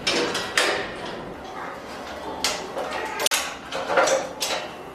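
Wrench tightening the long bolts on a stainless steel wok range's crossbeam: a run of metal clicks, knocks and scrapes, with sharper ones about half a second in, around two and a half seconds and near the end.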